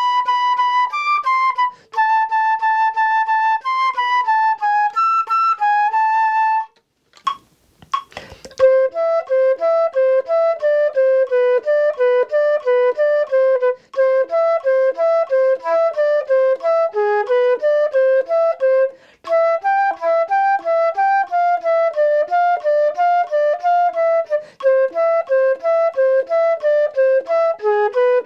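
Solo concert flute playing a melody of clean, separated notes, the first phrase higher-lying. About seven seconds in there is a short break with a few clicks, then a second, lower-lying melody of quicker notes runs on.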